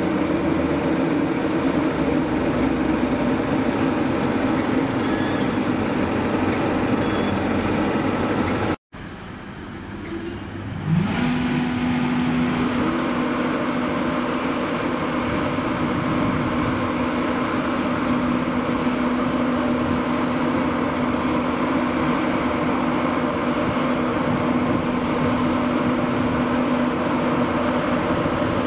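LNER Class 91 electric locomotive standing at the platform with its electrical equipment and cooling blowers running in a loud, steady hum. After a sudden break and a quieter moment, a whine starts at about 11 s, rises in pitch and then holds steady as a blower spins up.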